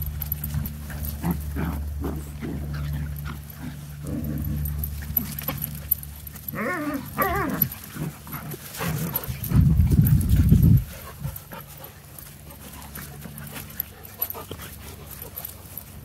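Puppies playing and roughhousing on grass. About seven seconds in, a dog gives two wavering, pitched cries, and a loud low rumble follows a couple of seconds later.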